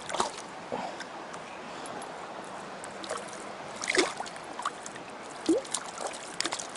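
A mountain stream running steadily, with scattered short splashes and clicks close by, the loudest about four seconds in.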